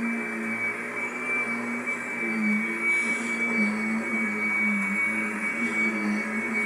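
Vacuum cleaner running steadily: a high motor whine over a lower hum that wavers slightly in pitch as it works.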